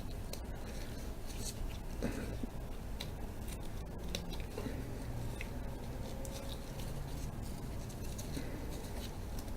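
Faint crinkling and small scattered clicks from a foil trading-card pack being opened and its cards handled, over a low steady hum.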